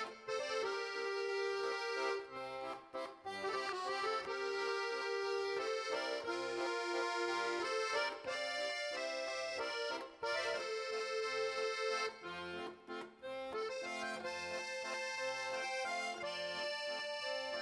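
Background instrumental music: a melody of held notes with full, reedy chords.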